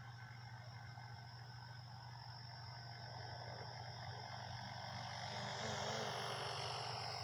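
WLToys V950 RC helicopter running in flight: a steady low rotor buzz with a high motor whine. It swells louder over the second half and is loudest near the end.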